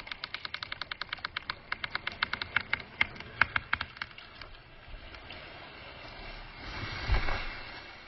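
Sharp cracks in quick succession, about six a second, as the hinge wood of the tree gives way near the end of the felling back cut. Then a rising rush and a heavy thud about seven seconds in as the tree comes down and hits the ground.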